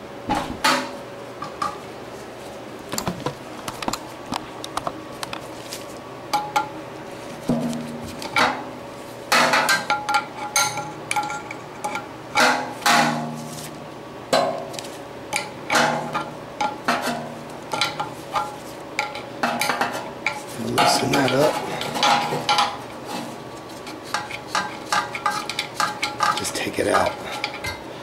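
Irregular metallic clanks, taps and clinks, some briefly ringing, from the sheet-metal blower housing and squirrel-cage wheel of a Goodman air handler being handled while a replacement blower motor is fitted.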